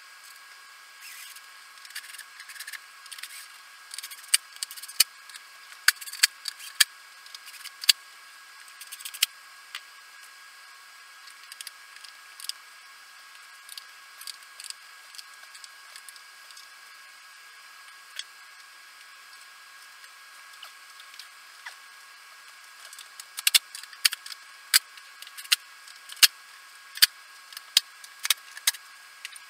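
Irregular sharp clicks and taps of hand tools and small parts being handled, in two busy clusters with sparser ticks between.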